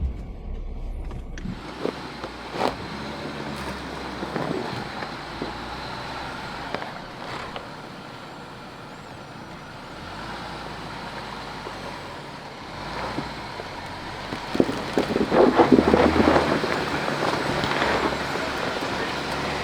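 Four-wheel-drive vehicle crawling along a rocky dirt trail: a steady low engine hum under tyre noise and scattered clicks. It grows louder and crackly for a couple of seconds near the end.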